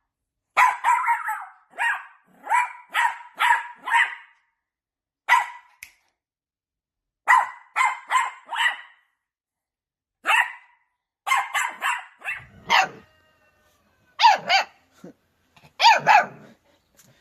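A dog barking over and over in bursts of short, sharp barks, with brief silences between the bursts.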